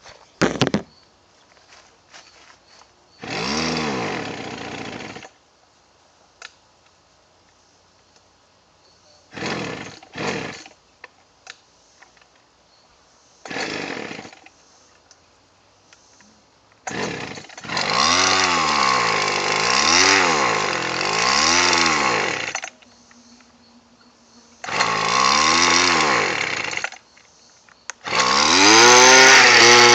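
Weed Eater Featherlite two-stroke string trimmer engine starting, catching for a second or two and dying several times, then running with its revs swinging up and down as the throttle is worked. It runs rough and dies unless the throttle is kept going, after long sitting.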